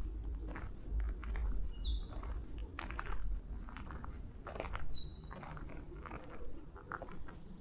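A small songbird singing a long, fast song of high trills and rapid repeated notes for about six seconds, over footsteps crunching along a path.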